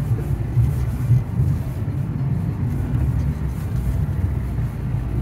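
Lada Granta's engine pulling under load, with the tyres rumbling over rutted packed snow, heard inside the cabin as the car drives up a short rise. The low rumble rises and falls unevenly with the bumps.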